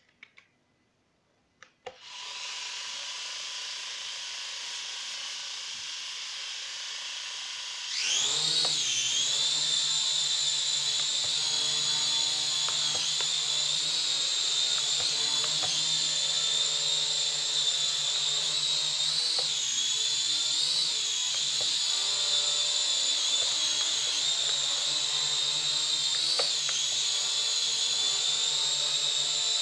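Toy quadcopter's small electric motors and propellers: a few clicks, then a steady whine starting about two seconds in that jumps sharply louder and higher about eight seconds in as it takes off. It then holds a high buzzing whine, with small swoops in pitch as it flies about.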